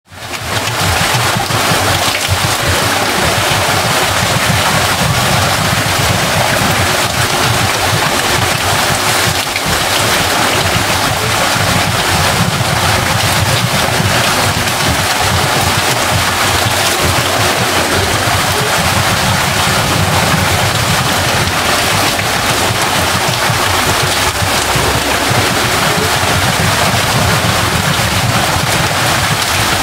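Watermill: water pouring and splashing steadily at the wheel, a dense rushing noise that fades in over the first second and then holds even.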